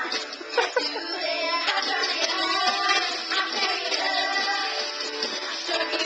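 Music with a singing voice, with a couple of sharp knocks about half a second in.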